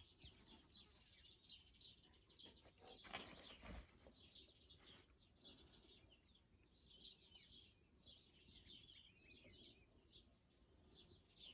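Faint birds chirping on and off in the background, many short high calls, with a soft knock or rustle about three seconds in.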